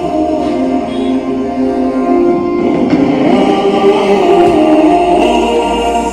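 A song with several singing voices and instrumental accompaniment, played from a USB pen drive through a small single-channel amplifier's 6-inch full-range speaker and tweeter.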